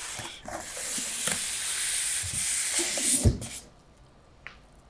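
Packaging rustling and sliding for about three and a half seconds as the foam-packed monitor is pulled out of its cardboard box, with a dull thump near the end.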